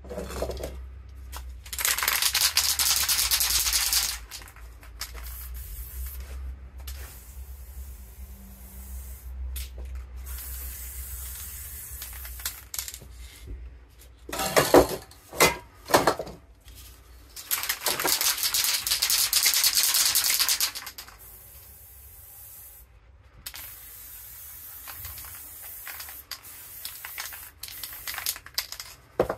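Aerosol spray paint cans hissing in bursts, the two loudest each lasting two to three seconds. A few sharp clacks come about halfway through.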